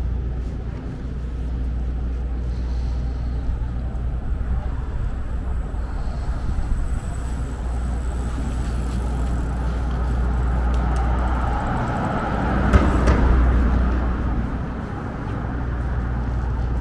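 City street traffic: motor vehicles running past, with a steady low rumble throughout. One vehicle passes louder about thirteen seconds in.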